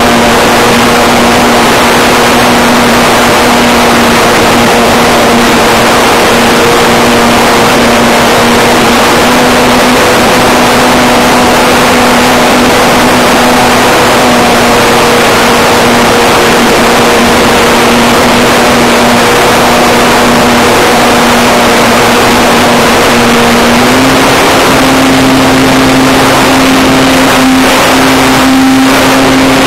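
Model plane's motor and propeller humming steadily under a loud, constant hiss of air and onboard audio. The hum steps up in pitch about 24 seconds in as the throttle rises, and a few brief crackles come near the end.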